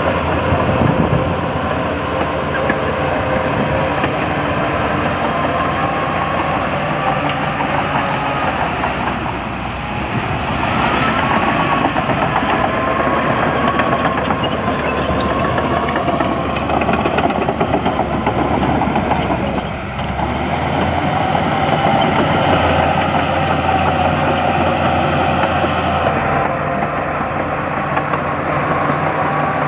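Diesel engines of heavy earthmoving machinery (dump trucks and a bulldozer) running steadily under load. The level dips briefly twice, about ten and twenty seconds in.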